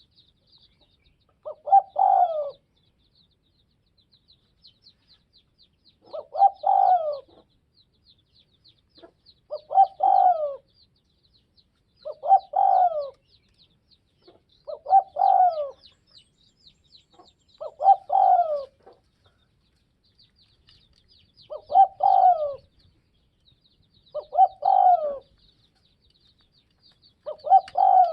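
Spotted dove cooing: nine phrases about a second long, repeated every two to four seconds. A faint, rapid, high chirping runs underneath.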